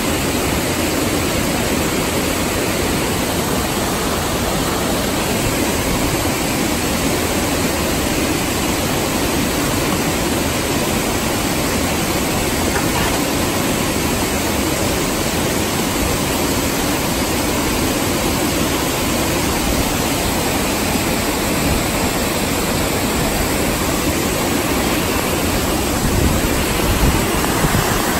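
Whitewater creek rushing and cascading over rocks: a steady, loud wash of water noise that swells slightly near the end.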